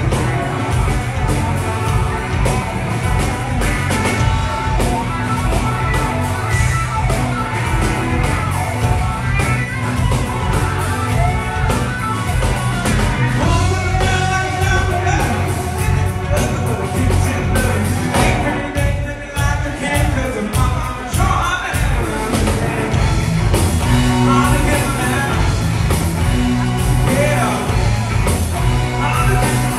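Live rock band playing amplified: electric guitar over bass guitar and a drum kit, with singing.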